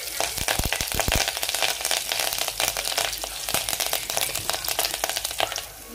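Curry leaves, green chillies, garlic, cumin and mustard seeds sizzling and crackling in hot oil: the tempering (tadka) for dal. There are a few light knocks in the first second.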